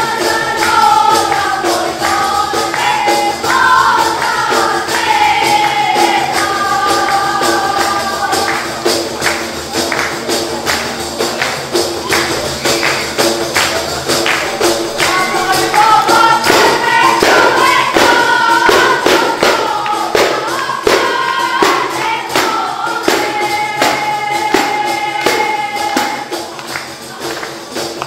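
Jingled frame drums (def) beating a steady rhythm, with singing over them in two long stretches, the second coming in about halfway through.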